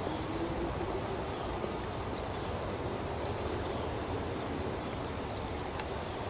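Outdoor ambience: a steady low background noise with scattered short, high chirps.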